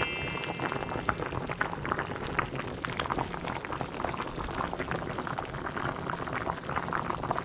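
Pot of beef stew boiling: a steady, dense run of small bubbling pops.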